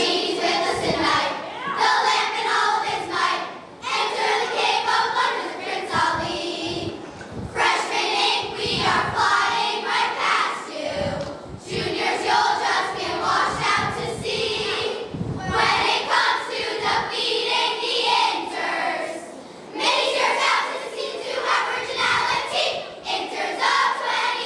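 A large group of girls singing a cheer together in chorus, with brief pauses between phrases.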